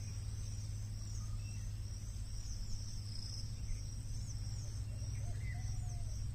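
Outdoor ambience: insects chirring steadily, high-pitched, with short chirps repeating about twice a second over a low steady hum. A few faint gliding calls come near the end.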